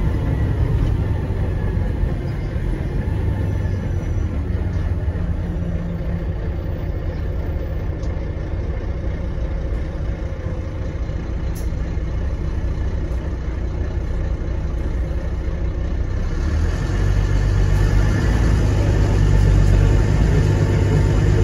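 Euro 3 Volvo D9B diesel engine of a Volvo B9TL double-decker bus running, heard from inside the lower deck as a steady low drone. It grows louder about three-quarters of the way through.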